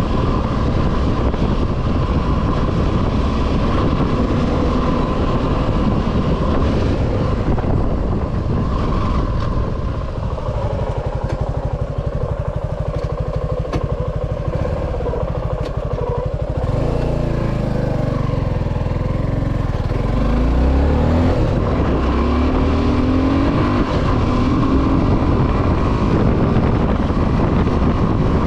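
Suzuki V-Strom 250 SX's single-cylinder engine running under way. Between about 17 and 22 seconds in, the engine note rises several times as it accelerates.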